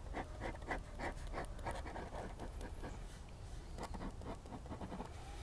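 Ballpoint pen scratching on paper in quick, short, irregular strokes, roughing in the texture of tree bark on a drawing.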